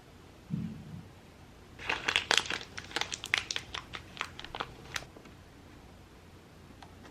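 A soft thump, then about three seconds of quick, irregular small clicks and rattles from mechanical keyboard parts being handled.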